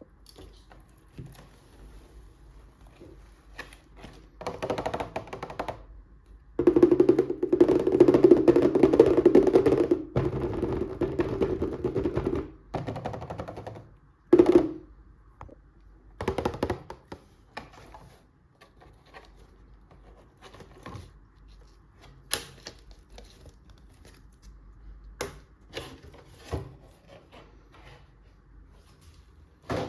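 Toy packaging being handled and opened: scattered clicks and knocks of plastic and cardboard, with a longer, louder stretch of rustling and scraping before the middle.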